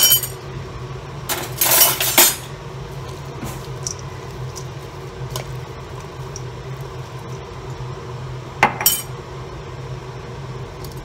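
Metal tongs clinking against a stainless-steel mixing bowl as cooked egg noodles are lifted and tossed. There is a cluster of sharp clinks about a second and a half to two seconds in, another near nine seconds, and a steady low hum underneath.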